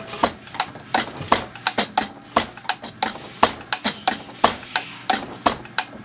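Hand-lever diesel injector pop tester being pumped quickly with its gauge valve closed, firing a Zexel (Bosch) mechanical injector in a spray-pattern test: a rapid, uneven series of sharp clicks, about three to four a second. The injector is streaming from a couple of holes rather than atomizing.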